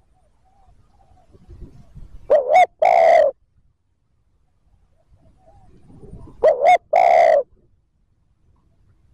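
Spotted dove cooing twice, about four seconds apart: each phrase is a quick double note followed by one longer, deep coo. This is the rapid "thúc gù" cooing that a decoy male uses to provoke wild doves.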